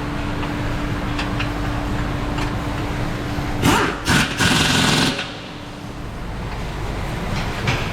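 Workshop noise: a steady mechanical hum. About four seconds in there is a loud burst of clattering and hissing, typical of tool work on the car.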